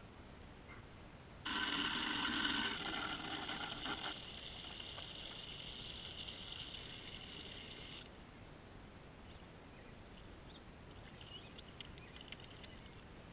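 A stream of water splashing into a plastic bucket, starting suddenly about a second and a half in, easing off, and stopping abruptly about halfway through. After that there are only faint small splashes as liquid soap is poured in.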